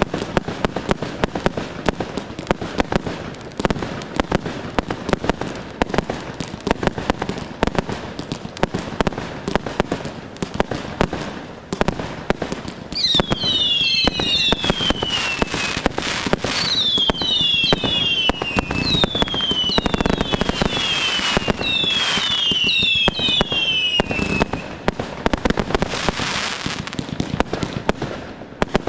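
Fireworks display: a dense, continuous series of bangs and crackle as shells launch and burst. In the middle stretch, for about twelve seconds, many whistles sound over the bangs, each one falling in pitch.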